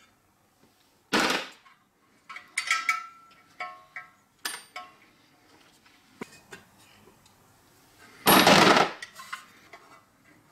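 Metal parts of an antique Daisy butter churn's cast gear head being handled and taken apart on a wooden bench: scattered clinks, scrapes and knocks, with a short ringing metal clink about three seconds in. A louder, longer clatter comes near the end.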